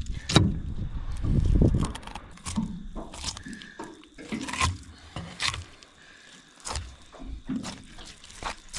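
A knife cutting a kahawai fillet away from the backbone on a wooden cutting board: irregular scrapes and clicks of blade, fish and board, with a low rumble between about one and two seconds in.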